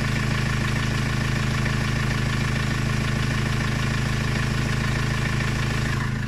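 Vauxhall Vivaro van engine idling roughly with a knock, which the owner reports lasts until the engine has warmed up and suspects may come from an EGR fault or a vacuum leak. The sound turns slightly duller and quieter near the end.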